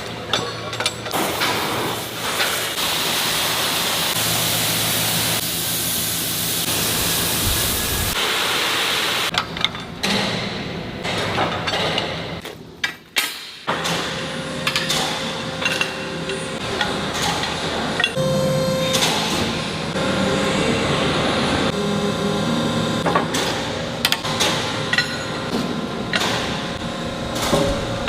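Metalworking shop noise: a steady hissing grind for the first several seconds, then a run of sharp metal knocks and clanks over a steady machine hum and whine.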